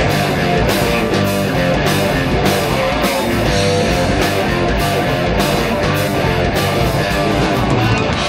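Live rock band playing an instrumental stretch between vocal lines: electric guitars, bass and keyboards over a steady, even drum beat.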